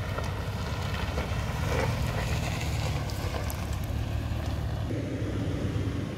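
Toyota 4Runner's V6 engine running at low trail speed, a steady low rumble, with a few small clicks from the tyres over dirt and stones. The tone of the rumble shifts a little about five seconds in.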